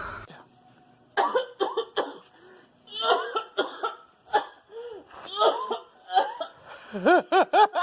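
A person coughing several times in short separate bursts, then quick rhythmic laughter near the end.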